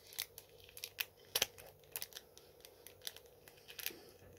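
Scissors snipping through the plastic wrapping around a trading card: a run of short, sharp snips at irregular intervals.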